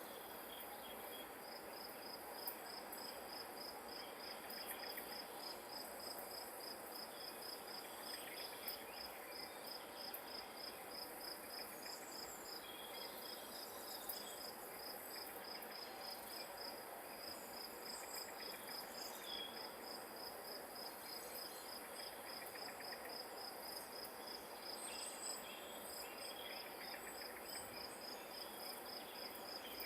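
Grass insect, cricket-like, chirping in a rapid, even train of high-pitched pulses that pauses briefly near the end, over a steady outdoor hiss. There are a few faint, short bird chirps.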